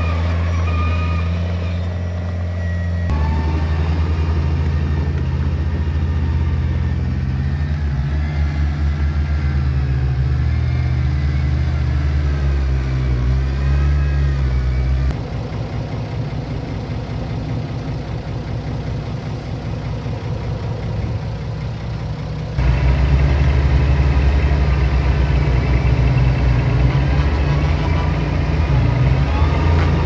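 Diesel engines of small earthmoving machines running, a steady low drone whose pitch and loudness change abruptly about three seconds in, halfway through and again about three quarters of the way through.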